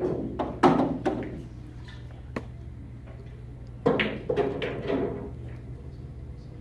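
Pool balls knocking on the table as a shot is played: sharp clacks with a short ring, a cluster right at the start and about two-thirds of a second in, then another cluster about four seconds in, over a steady low hum.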